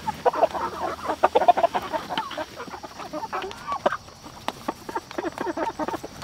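A flock of red meat chickens clucking and chattering constantly while they feed, with scattered sharp clicks among the calls.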